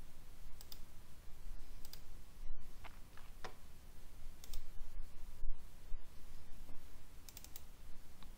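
Computer mouse clicking: a scattering of short, sharp clicks, some in quick pairs, over a low steady hum.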